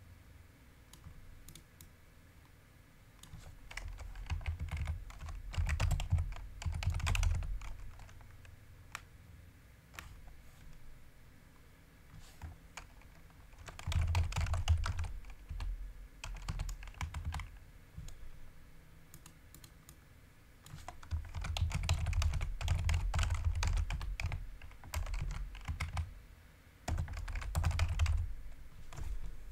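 Typing on a computer keyboard: rapid keystroke clicks in several spells, separated by short pauses.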